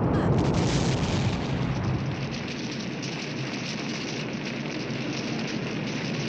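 Movie explosion of a boat blowing up on a lake, its deep rumbling tail loud at first and dying down over about two seconds into a steady crackling rush of burning fire.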